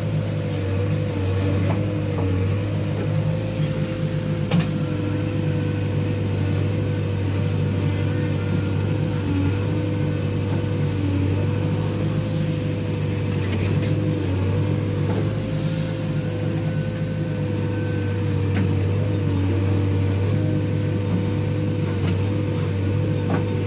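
Heavy diesel engine running steadily at an even speed, with a thin steady whine above its low drone.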